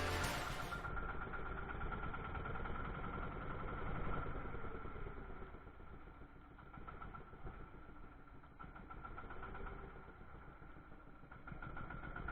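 Fishing boat's engine running steadily, heard fairly faintly as a continuous drone with a low rumble, a little quieter in the second half.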